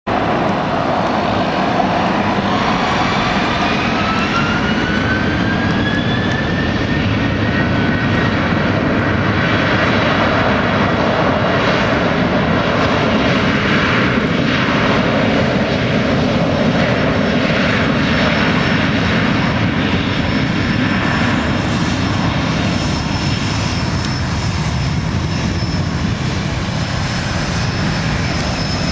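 Boeing 737-800's CFM56 turbofan engines at takeoff thrust, a loud steady jet roar. A whine rises in pitch over the first several seconds as the engines spool up, and a steady high tone sits over the roar later on.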